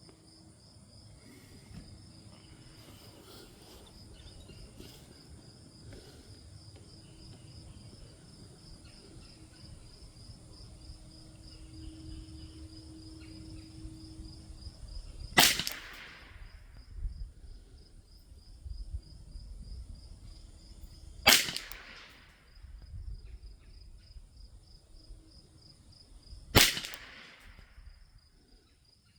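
Three single shots from a Thompson Center TCR .22LR rifle firing SK Standard Plus ammunition, each a sharp crack with a short tail, about five to six seconds apart. Crickets chirp steadily throughout.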